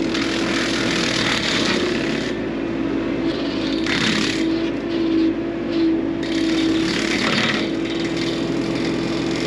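A motor running steadily with a constant mid-pitched whine that wavers slightly, with bursts of rushing noise on top.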